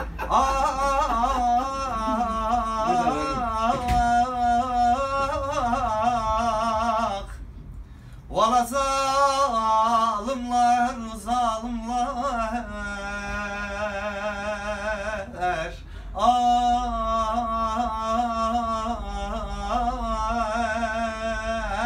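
A man singing unaccompanied, Turkish folk-style, holding long wavering, ornamented notes in three long phrases with short breaks for breath between them.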